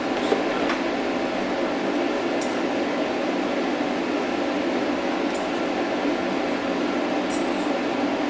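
Steady machine hum with a few faint, light clicks.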